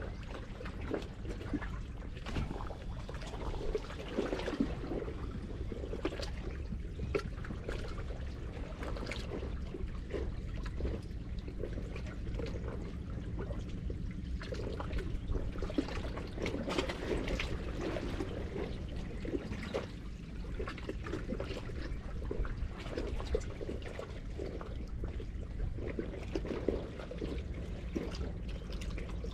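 Seawater sloshing and trickling in the gaps between concrete tetrapod blocks, with irregular splashes and gurgles over a low steady rumble.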